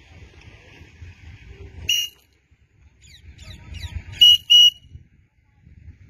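Short, shrill whistle blasts: one about two seconds in, then two quick ones close together near the end, each a single steady high note. Low rumbling noise lies beneath them, with fainter chirp-like sounds just before the pair.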